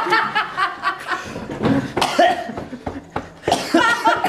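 People laughing and chuckling.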